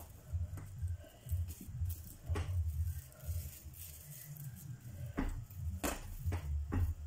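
Light knocks and rustling as a small Christmas wreath is fumbled against a front door in an attempt to hang it, over a low uneven rumble. The knocks are scattered, with a few close together near the end.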